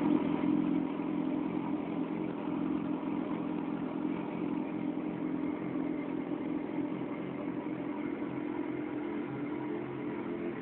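Suzuki GSX650F motorcycle's inline-four engine running steadily through its exhaust, holding an even pitch without revving.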